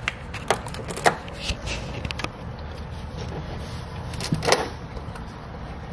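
Plastic interior trim of a Jeep being pried and handled: a series of sharp clicks and knocks, several close together in the first two seconds and a louder one about four and a half seconds in.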